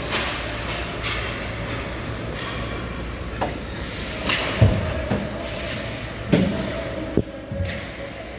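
Hockey game play echoing in a large rink: irregular knocks and thuds of sticks and puck against boards, about eight in all, the loudest a little under halfway and near the end. A steady low rumble runs underneath.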